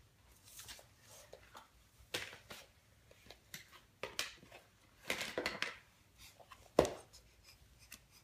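Large floor puzzle pieces being handled, slid and set down on a hardwood floor: faint scattered rustles and taps, with one sharp slap about two-thirds of the way through.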